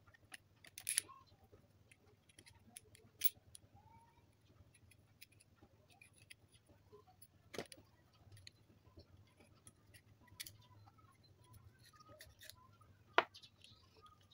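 Small LED torch being taken apart by hand: scattered sharp clicks and taps of its metal and plastic parts, a handful louder than the rest, the loudest near the end, over a faint low hum.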